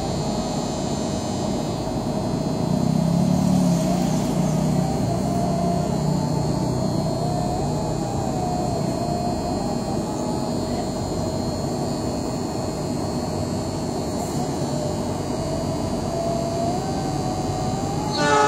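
Steady low running noise of a diesel passenger train standing at a station, swelling for a couple of seconds about three seconds in. Right at the end, the horn of the approaching oncoming train's locomotive starts to sound.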